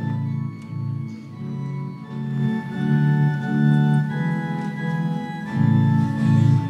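Organ playing a slow run of held chords, the introduction to the sung Alleluia before the Gospel.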